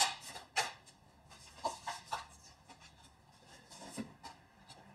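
Tarot cards being drawn from a deck and laid onto a table. Two sharp card snaps come in the first second, followed by a few fainter taps and slides of card on card.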